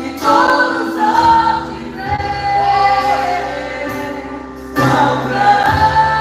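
Live gospel worship song played by a church band, with a group of voices singing long held notes over a bass line that moves to a new note every second or two.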